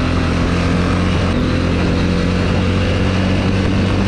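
ATV engine running at a steady speed while the quad is ridden across the ice, the pitch holding even throughout.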